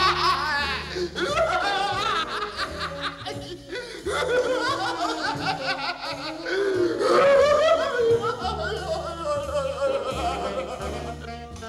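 A man's hysterical cartoon laughter, cackling and wavering in pitch, over background music with a line of steady bass notes.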